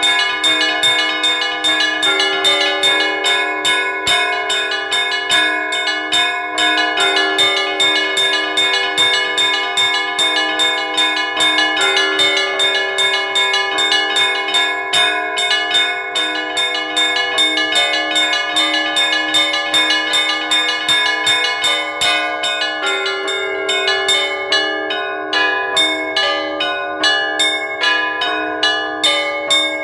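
Russian Orthodox church bells (kolokolny zvon) ringing in a fast, continuous peal, several strikes a second, with the tones of many bells ringing on over one another. Near the end the strikes thin out into a more spaced, rhythmic pattern.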